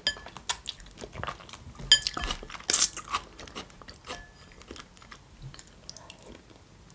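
Close-miked eating sounds: irregular chewing, biting and crunching, with a few light clinks of a spoon against a dish that ring briefly.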